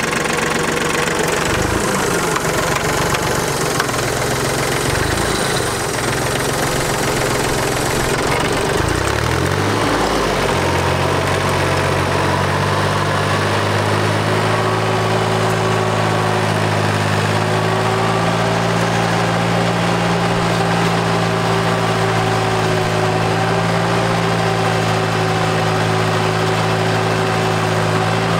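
Diesel engine of a Yanmar FX175 mini tractor driving a rotary tiller. Its speed rises and falls several times over the first ten seconds, then it runs steadily as it tills.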